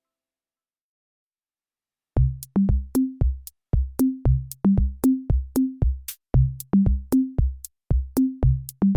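Near silence for about two seconds, then electronic background music starts: a drum-machine beat with deep bass-drum hits and short clicks, about two to three a second.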